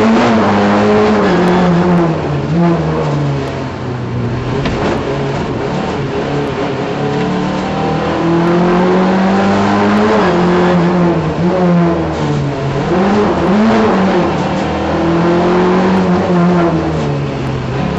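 Simca rally car's engine heard from inside the cabin, revving hard at speed, its pitch climbing and dropping again and again with brief lifts off the throttle.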